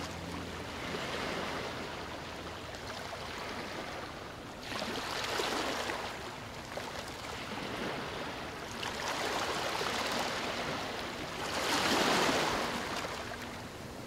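Sea surf washing in over a rocky shore, swelling in slow surges every few seconds, with the biggest wash near the end.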